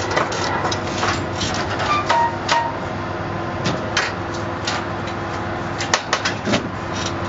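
Scattered clicks and metallic knocks as a solar panel is handled and fitted against metal mounting rails. A steady low mechanical hum runs underneath.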